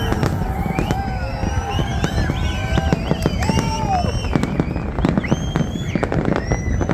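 Fireworks going off in a rapid, continuous barrage: dense bangs and crackling over a steady low rumble, with many whistling tones gliding up and down in pitch.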